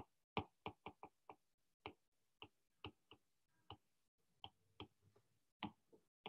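Faint, irregular clicks of a stylus tapping and touching down on a tablet while handwriting words, about two or three a second.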